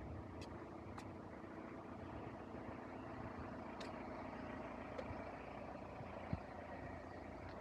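An engine running steadily at low revs, a faint even hum. A few light clicks and one short thump about six seconds in.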